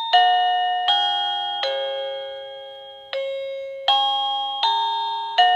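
SmartDude SD003 wireless doorbell receiver playing one of its electronic chime melodies. It is a tune of bell-like notes, each struck and fading away, about one every three-quarters of a second, with one note held about twice as long in the middle.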